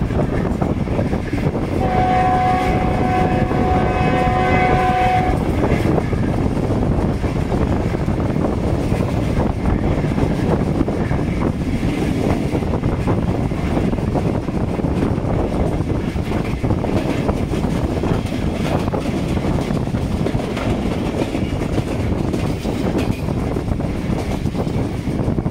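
Passenger train running at high speed, heard from a coach window: a steady rumble of wheels on rail with wind. The train's GEU 40 locomotive horn sounds one long blast about two seconds in, lasting some three seconds.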